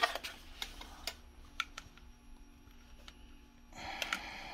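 Scattered small clicks and light knocks as test leads with alligator clips are handled and clipped onto a small battery's terminals, with a short rustle about four seconds in.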